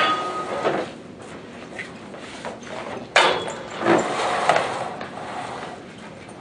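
Metal-framed stacking chairs and music stands being moved about on a hard stage floor: a sharp knock at the start, then a louder knock and scrape about three seconds in, with more clattering and footsteps just after.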